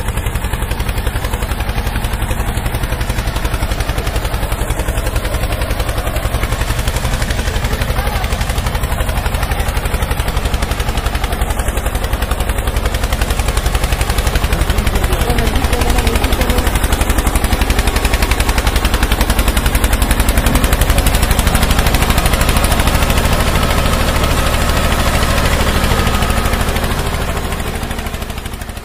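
Steady, rapid popping rattle of a running engine, like a tractor engine, fading out near the end.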